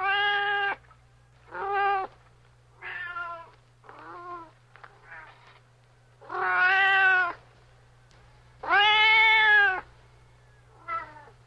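Domestic cat meowing about eight times: a string of separate meows, some short and some drawn out. The two longest and loudest come in the second half, and a short one comes near the end.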